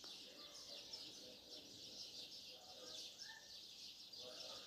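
Near silence with faint background chirping, like distant birds.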